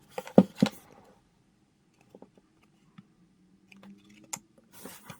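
Light clicks and knocks from hands working on a small computer, the two loudest close together about half a second in, then a few scattered ticks and a short scrape near the end, over a faint steady hum.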